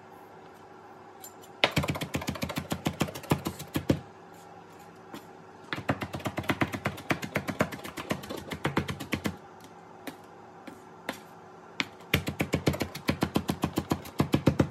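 A kitchen knife finely chopping cilantro on a plastic cutting board: rapid knocks of the blade against the board in three runs of a few seconds each, with short pauses and a few single knocks between them.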